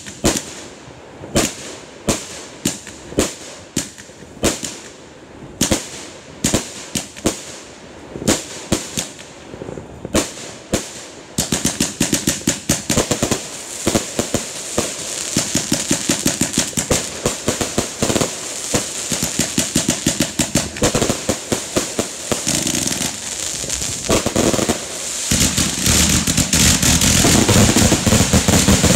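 Fireworks finale. For the first ten seconds or so, separate launches and aerial bursts bang a few times a second. Then, about twelve seconds in, they give way to a dense rapid barrage of bangs that grows louder toward the end.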